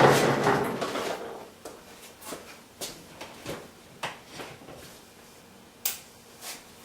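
A loud noise fades out over the first second, then comes a scattered series of about ten light knocks and clicks, like objects being handled, the sharpest one about six seconds in.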